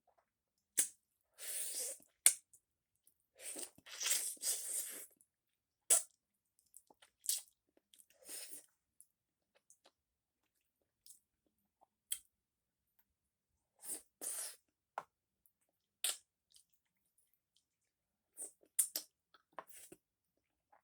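A person chewing frog legs in a creamy sauce: short, irregular mouth noises and clicks separated by quiet pauses.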